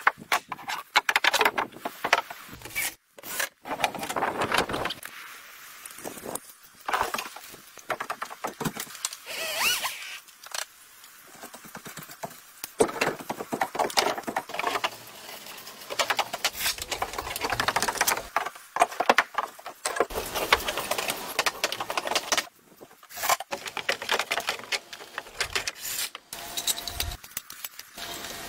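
Irregular scraping, rubbing and knocking of hand tools working wood, with several abrupt breaks.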